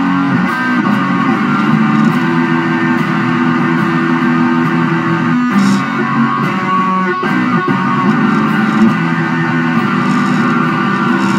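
Instrumental psychedelic rock with electric guitar and bass playing a dense, sustained passage, without vocals.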